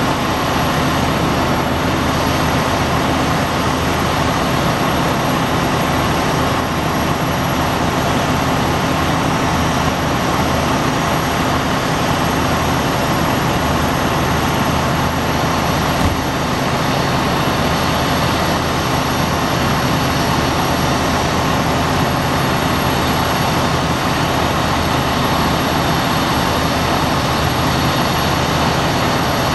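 A vehicle's engine running steadily: a loud, even drone with no siren and no change in pitch.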